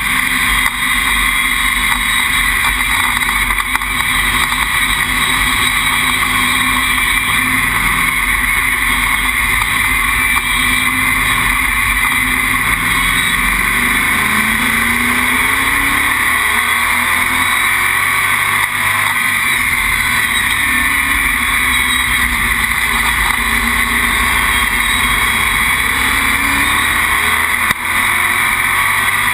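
Stock car's engine heard from inside the cockpit, running hard under a steady roar of wind and road noise; its pitch rises and falls several times as the driver comes off and back onto the throttle.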